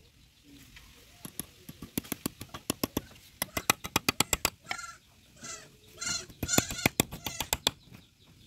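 A quick run of light metallic taps, about four or five a second, as a small hammer taps a bent steel rod into a slot in a piece of wood. In the second half, several pitched animal calls sound in the background between further taps.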